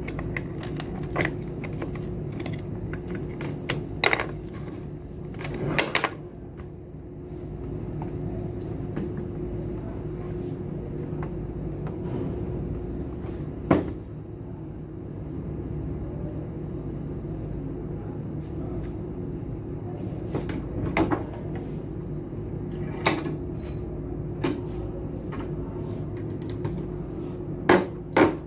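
Scattered metal clinks and knocks of hand tools and parts during the disassembly of a submersible pump, a dozen or so sharp strikes spread out, over a steady background hum.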